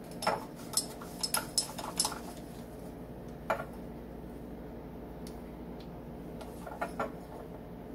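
Measuring spoon clinking and scraping against a spice jar and a mixing bowl: a quick run of light clicks in the first two seconds, one more about halfway, and a couple near the end.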